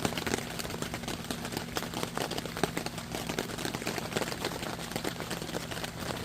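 Rain pattering on a greenhouse roof: a dense, irregular stream of small taps, with a low steady hum underneath.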